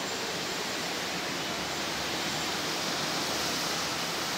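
Steady rushing noise of street traffic on the road below.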